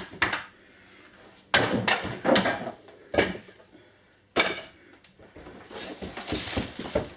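Several sharp knocks and clatters a second or so apart, then a longer stretch of scraping and rustling near the end: objects being handled and moved about in a small room.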